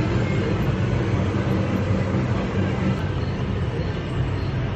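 A steady low hum, like machinery running, with an even wash of noise above it.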